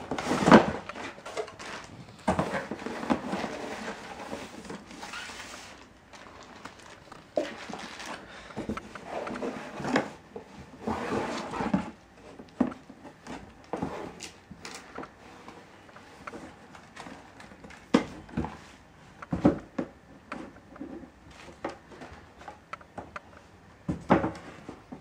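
Clear plastic packaging crinkling and rustling as a laptop power adapter and its cable are unpacked from a plastic bag and a small cardboard box, in two stretches of several seconds. Scattered light knocks and taps follow in the second half.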